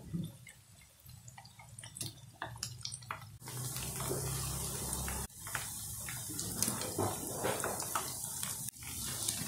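Chả giò (Vietnamese spring rolls) deep-frying in a pan of hot oil: a steady sizzle full of small crackling pops. It grows louder about a third of the way in.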